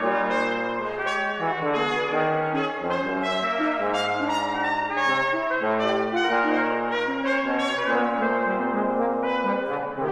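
Brass quintet of two trumpets, French horn and two trombones playing together in full ensemble: sustained low trombone notes under shifting chords in the upper parts, with a brief dip in loudness just before the end.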